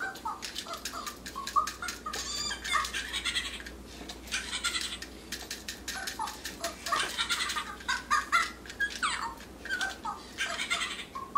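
Two Fingerlings interactive toy baby monkeys chattering through their small speakers in short, high-pitched electronic squeaks and chirps, reacting to having their heads tapped. About nine seconds in, one call falls in pitch.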